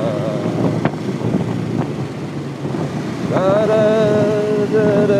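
Wind and traffic noise from a ride on a moving vehicle. About three seconds in, a singing voice slides up into a long held note with vibrato, carrying on over the road noise.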